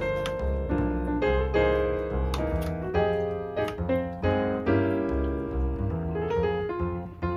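Background piano music, with notes struck in a flowing melody over a low bass.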